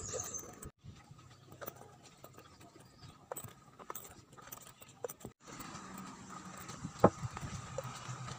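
Footsteps on a concrete footpath: separate irregular taps about a second apart, the loudest about seven seconds in, over a faint steady high tone. The sound cuts out completely twice, briefly.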